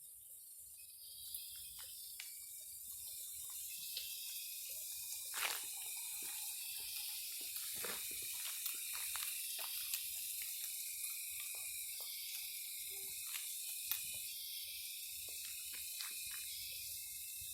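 Forest ambience: a steady, dense, high-pitched insect chorus, with scattered drips and small splashes of water throughout.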